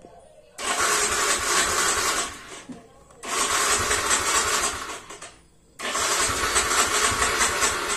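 Yamaha Mio M3 125 scooter's single-cylinder engine being started on its electric starter, in three bursts of about two seconds each with short quiet gaps between. The start follows an ECU reset done to clear fault code 24 (oxygen sensor), a fault that had made cold starts hard.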